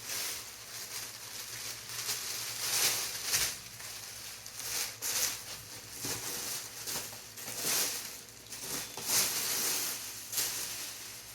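Plastic wrapping and packing material rustling and crinkling as a model plane's wing is cut free and pulled out of its box, in an uneven run of short swishes and scrapes.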